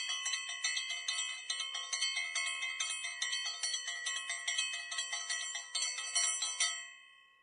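Bright bell chimes struck in a quick, even run, about three or four strikes a second, then ringing out and fading near the end.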